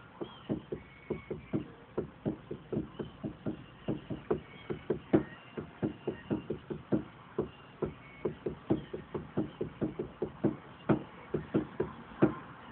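A long run of quick, dull knocks or taps, roughly three a second and uneven in strength, with birds chirping faintly.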